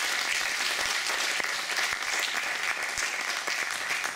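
Audience applauding: many hands clapping in a steady, even spread.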